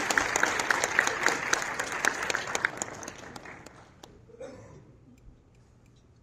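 Audience applause, a dense patter of hand claps that thins out and fades away over about four seconds into near quiet.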